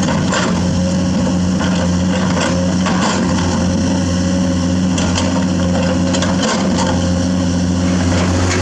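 A Komatsu hydraulic excavator's diesel engine running steadily under load, with scattered knocks and scrapes of the bucket and rock while digging limestone.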